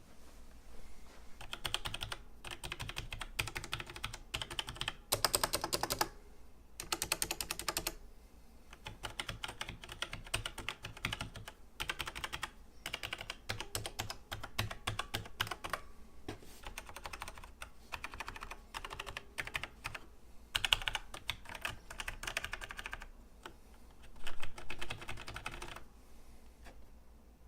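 Typing on a Logitech G613 mechanical keyboard with Romer-G switches: fast runs of key clicks broken by short pauses, with a few louder stretches of keystrokes.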